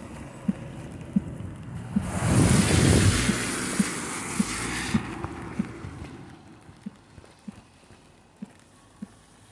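A car passing close by on the wet road, its tyres hissing on the wet asphalt, swelling about two seconds in and fading away by about six seconds. Under it, footsteps on wet pavement tap steadily, about three every two seconds.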